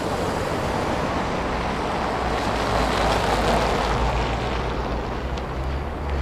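A vehicle passing by: road noise swells to a peak about halfway through and eases off, over a steady low rumble.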